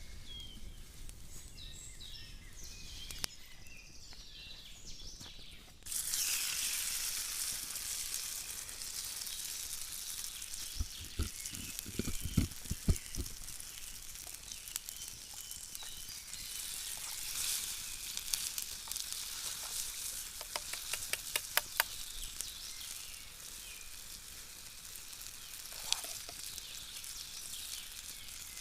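Potato pancakes frying in hot oil in a pan: a steady sizzle starts suddenly about six seconds in and carries on, with a few dull knocks about halfway through.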